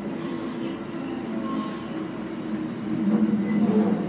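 JR East E217 series electric train running, heard inside the cab at the coupled end: continuous rumble and rail noise with a steady hum. It grows louder about three seconds in.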